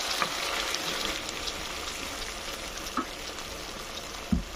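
Chicken and potatoes sizzling in a pan just after thin coconut milk has been poured in, a steady hiss that slowly dies down as the milk takes the heat out of the pan. A light tap about three seconds in and a dull knock near the end.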